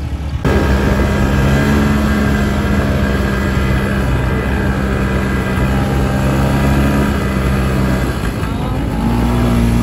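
Off-road vehicle's engine running steadily under throttle while being ridden along a dirt trail, heard from the rider's seat; it cuts in abruptly about half a second in. The engine note sags about eight seconds in, then climbs again near the end.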